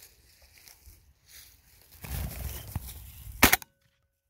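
Footsteps and rustling through dry grass stubble, louder from about two seconds in, ended by a single sharp, loud crack after which the sound cuts off.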